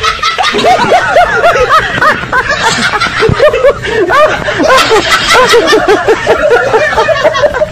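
Laugh track of several people laughing and snickering together, overlapping one another, fading near the end.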